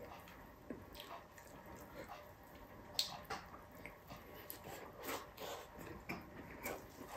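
A person eating beef stew and rice by hand: chewing and lip smacks with scattered small clicks, the sharpest about three seconds in.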